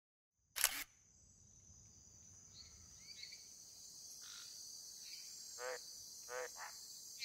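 Pond nature ambience: steady chirring of crickets, with a few short frog croaks in the second half. A brief swish comes about half a second in.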